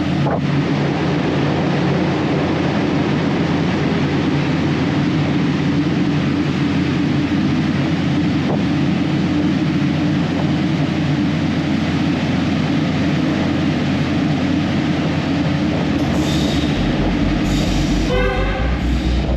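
Diesel-electric locomotive running fast through a rail tunnel: a steady, loud drone of engine and wheels on rail. Near the end, music with a pulsing low beat comes in over it.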